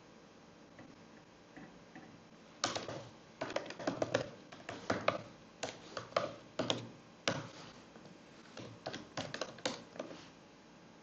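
Typing on a computer keyboard: irregular runs of key clicks that start about two and a half seconds in and stop near the end.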